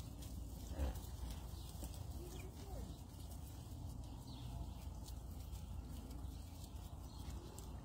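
Alpacas eating grain off the ground at close range: small irregular crunching and nibbling ticks, with hooves shuffling on the dirt and one brief louder knock about a second in.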